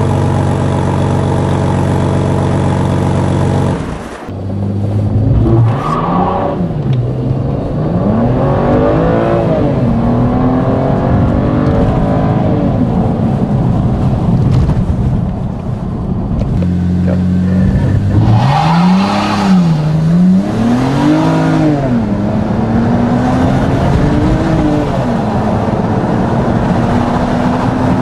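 BMW E90 3 Series straight-six engine through an Eisenmann sport exhaust with midpipe. It idles steadily for about four seconds, then after an abrupt cut revs up and falls back in pitch again and again. The run of rises and drops is interrupted by another cut about two-thirds of the way through.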